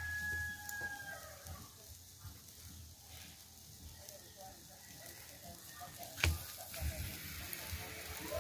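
A rooster crows once near the start, one drawn-out call that falls slightly in pitch. Under it, chicken grilling over charcoal crackles faintly. A single sharp knock comes about six seconds in.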